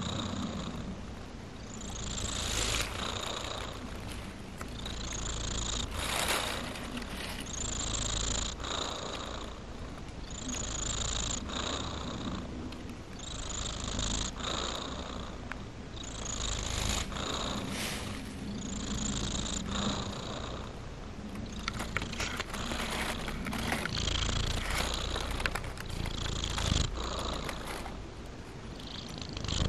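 Domestic cat purring steadily while held and stroked, the purr swelling and easing in a regular rhythm about every second and a half.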